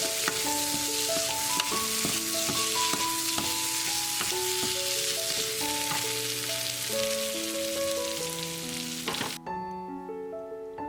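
Butterbur stems sizzling as they stir-fry in a pan, with a few sharp clicks of stirring; the sizzling cuts off abruptly about nine seconds in.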